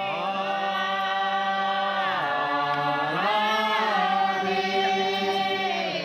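Voices chanting in long, held notes, a slow sung chant whose pitch dips about two seconds in and rises again about a second later.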